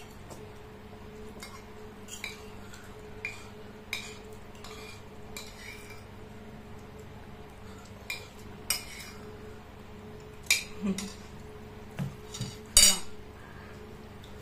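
Metal spoons clinking and scraping against ceramic bowls while eating, in irregular short clinks about once a second or less. Near the end comes a louder knock, a ceramic bowl with its spoon set down on a table.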